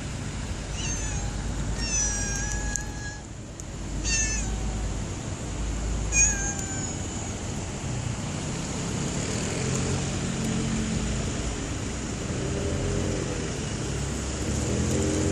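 Stray cats meowing: several short, high-pitched meows in the first half over a steady background hiss, then lower, longer drawn-out calls in the second half.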